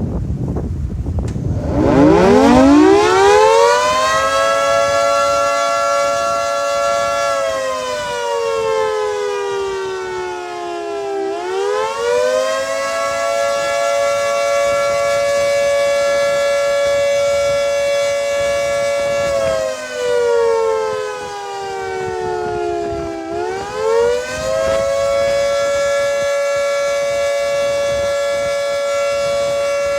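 Federal Signal 3T22A three-tone rotating tornado siren sounding its Attack signal in a test. It spins up about two seconds in to a steady chord, then slowly falls and rises again in a long wail, repeating roughly every twelve seconds.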